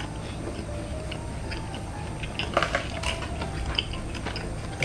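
Close-up chewing of a mouthful of fried cheese snacks: scattered small crunchy clicks and wet mouth sounds.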